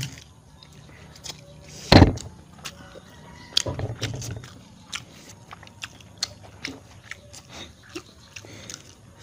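Instant noodles being slurped and chewed with chopsticks, with many small clicks and taps throughout. A single loud thump about two seconds in.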